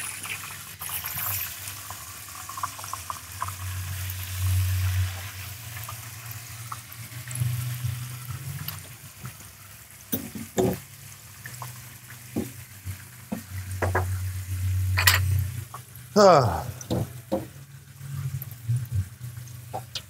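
A spatula stirring food in a pot, with light frying sizzle and scattered clinks and knocks of utensils. A hiss fades away in the first second.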